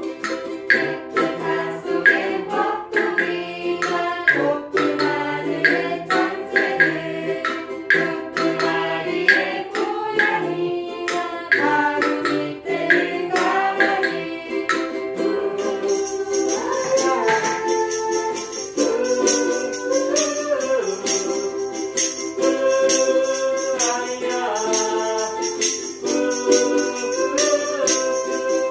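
A ukulele ensemble plays while voices sing a Korean children's song, with a wood block struck with a stick in a steady beat through the first half. About halfway through, a tambourine's jingles come in and ring continuously over the song to the end.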